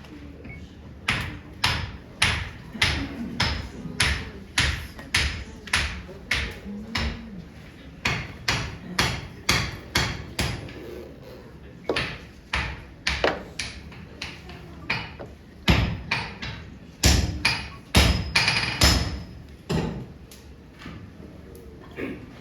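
Hand hammers striking hot steel on an anvil, forging a katana billet while the steel is folded: a run of sharp, ringing blows at about two a second, pausing briefly a few times.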